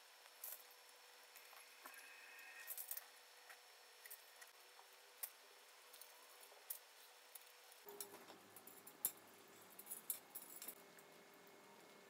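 Light metallic clinks and ticks of steel bicycle spokes knocking against each other, the hub flange and the rim while a wheel is laced by hand. The clicks are faint and irregular, a little busier near the end.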